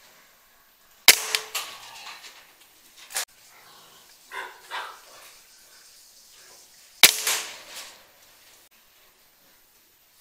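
Two PCP air rifle shots about six seconds apart, each a sharp crack followed by a short ringing tail. Fainter knocks come a couple of seconds after the first shot.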